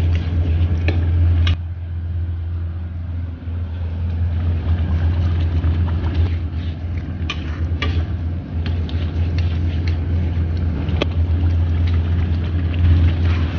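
Metal spatula scraping and tapping against a wok of simmering sauce, in scattered sharp clicks, over a steady low hum. Near the end, chopped leafy greens are tipped into the wok.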